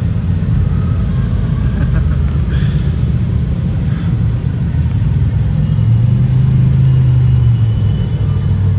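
A group of motorcycles riding slowly past in a procession, their engines running together. Near the end a deeper engine note swells and holds steady for a second or two.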